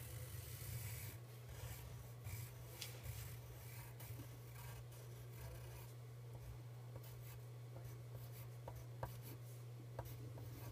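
Faint scratching of a pencil drawing lines on paper, with a few light ticks as the lead touches down.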